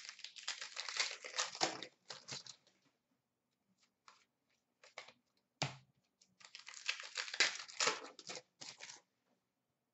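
Wrapper of a Panini Contenders hockey card pack being torn open and crinkled in the hand, in two spells of crackling, the first over about three seconds, the second starting about six and a half seconds in, with a few light clicks between.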